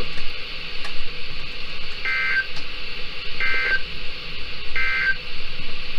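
Three short electronic data bursts, just over a second apart: the SAME end-of-message code that closes an Emergency Alert System weather warning on NOAA Weather Radio, heard over steady radio hiss.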